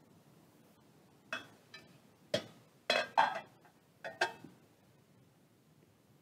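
Metal communion plates and trays clinking against each other as they are handled and stacked on the altar table, about eight sharp clinks with a brief ring, between about one and four and a half seconds in.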